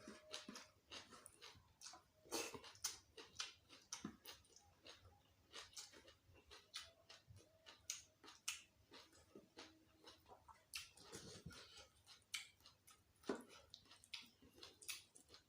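A person chewing a meal of gulai kikil and raw vegetables close to the microphone: quiet, irregular wet clicks and smacks of the mouth.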